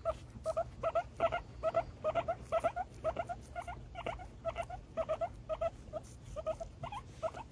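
Guinea pigs squeaking in a rapid series of short, pitched calls, about two a second.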